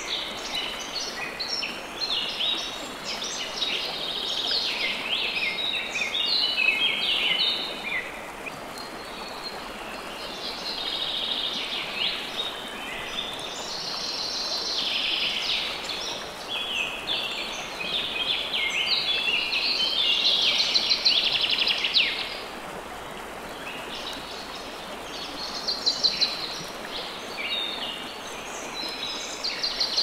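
A forest stream running steadily over rocks, with songbirds singing repeated phrases over it, some of them fast trills, with short lulls in the song.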